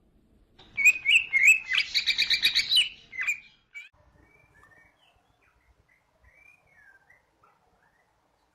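Ciblek kristal, a small prinia, calling: a few sharp chirps, then a fast trill of about nine notes a second, stopping about three and a half seconds in. Faint, softer chirps follow.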